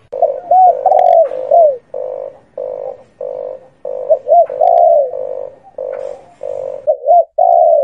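Doves cooing: a quick run of short, low, throaty coos, some notes rising and falling in pitch.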